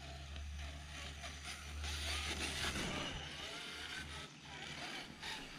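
Axial SCX10 III rock crawler's electric motor and drivetrain running at crawling speed, a faint wavering whine over a low rumble that drops away about four seconds in.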